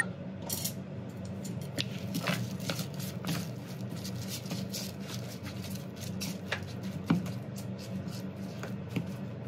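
Long wooden chopsticks tossing blanched shungiku (garland chrysanthemum greens) dressed with sesame oil in a plastic bowl: soft squishing of the wet leaves with irregular light clicks of the chopsticks against the bowl, over a steady low hum.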